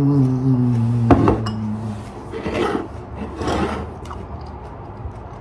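A man's long, slightly falling "mmm" of appreciation while chewing, with a sharp click of a spoon on a ceramic bowl about a second in, then two short scraping rustles.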